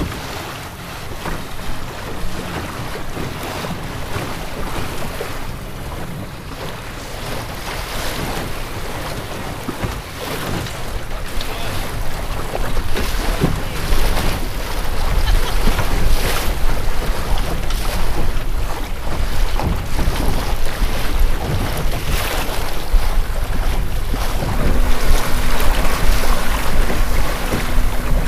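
Water rushing and splashing along the hull of a Melonseed skiff under sail, with wind buffeting the microphone. The splashing grows louder about halfway through and again near the end.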